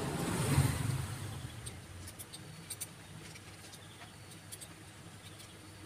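Light clicks and taps of small metal motorcycle clutch parts being handled and fitted. A louder low rumbling noise fades away over the first second.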